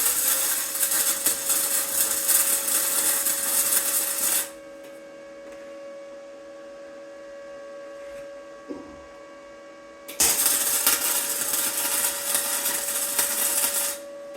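Arc welder crackling while steel pipe is welded together, in two runs of about four seconds each. A steady electrical hum fills the pause between the runs.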